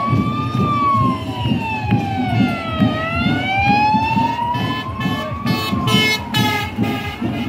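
Police car siren wailing slowly up and down, rising, falling, rising again and falling. Short, repeated, evenly pitched blasts join it about two-thirds of the way through.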